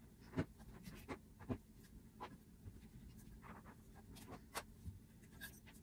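Hands folding and pinning a knit fabric hem: faint rustling of the cloth with scattered small clicks and taps.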